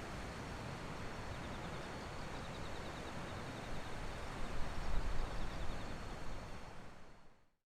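Strong wind blowing over the microphone: a steady rush with heavier low buffeting gusts about five seconds in, fading out near the end. A faint, high, steady trill runs underneath.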